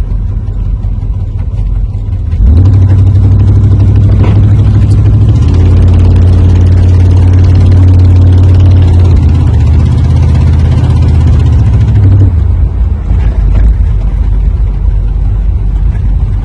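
Chevrolet Camaro engine and exhaust running, brought up to a higher, louder note about two and a half seconds in, held for about ten seconds, then dropping back to a lower idle. The owner suspects an exhaust leak.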